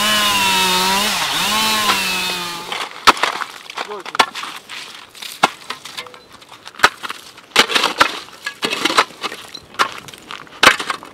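Iron ice chisel chopping ice and shovels scraping through wet slush: irregular sharp strikes and scrapes, beginning about three seconds in. Before that, a steady droning tone of wavering pitch stops abruptly.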